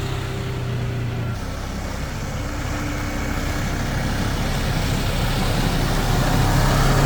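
Snowmobile engine running, its pitch changing about a second in and then getting steadily louder toward the end as it sets off.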